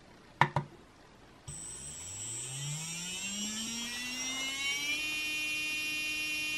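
Hobbywing Justock G2.1 17.5T sensored brushless motor spun up with no load by a motor analyzer for a KV test: starting about a second and a half in, its whine rises in pitch for a few seconds, then holds steady near 18,000 rpm.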